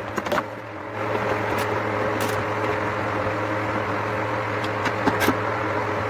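Steady machine hum with a low, even hum tone underneath, dipping briefly about half a second in, and a few sharp clicks from hand tools worked against the transformer's winding.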